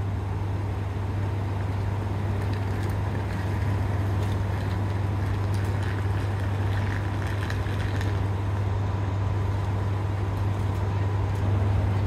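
Yufuin no Mori diesel railcar standing at the platform with its engine idling: a steady low hum with a thin high tone over it, and a few light clicks in the middle.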